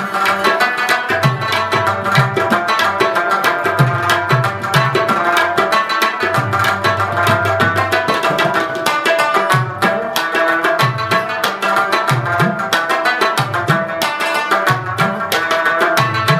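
Instrumental music: a steady rhythm of drum strokes, the low ones bending in pitch, under a sustained melodic line.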